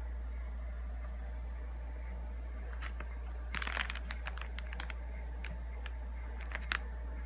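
Steady low electrical hum with two short clusters of crackling clicks, one about three and a half seconds in and another shorter one near the end.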